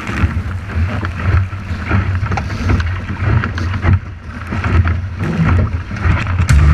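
Wind buffeting the microphone over the rush and splash of water along the hull of a sailboat driving hard through choppy water in strong wind.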